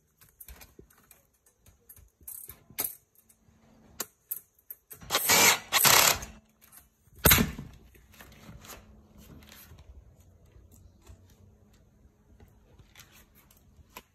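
Metal roof-basket bars and screws being handled and fitted: scattered light clicks and clinks, a louder rattling scrape about five to six seconds in, and one sharp knock a little after seven seconds.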